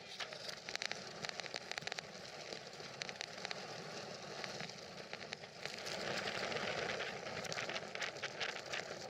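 Gale-force wind rushing past a racing sailboat while spray spatters on the deck and microphone in many sharp ticks, louder from about six seconds in.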